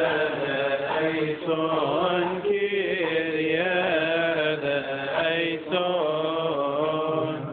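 A man's voice chanting a liturgical prayer through a microphone, in long held notes that waver and bend in pitch.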